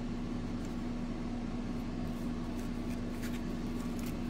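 A steady low electrical or fan hum, with faint rustles and light clicks of old trading cards and a paper pack insert being handled.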